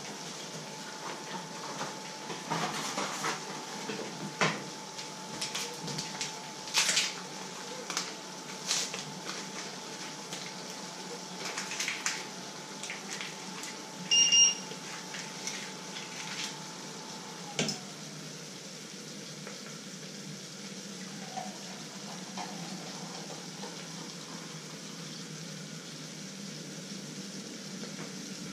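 Clinks and knocks of steel pots and utensils on a glass-top electric stove, with a short electronic beep from its controls about halfway through. A steady high whine drops in pitch and cuts out a few seconds after the beep.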